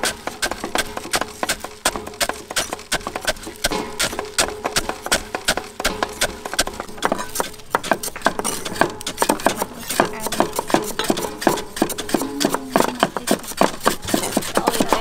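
Wooden pestle pounding peanuts in a wooden mortar, a run of quick knocks; partway through this gives way to several cleavers chopping on wooden cutting boards at once, a fast overlapping clatter.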